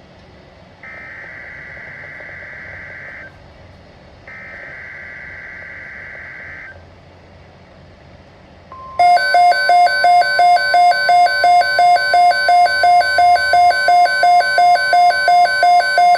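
Emergency Alert System SAME header: two buzzing digital data bursts, each about two and a half seconds long with a second's gap between them. About nine seconds in, the alert's attention tone starts: a loud beeping that pulses about three times a second over a steady single tone.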